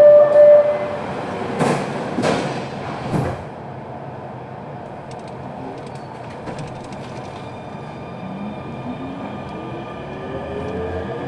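Barcelona Metro Line 10 train: three sharp clunks about two to three seconds in, then steady running noise. Near the end a rising electric motor whine sets in as the train gathers speed.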